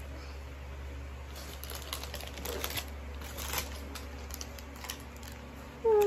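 Clear cellophane gift wrapping crinkling as it is handled, in irregular crackles that come and go over a few seconds.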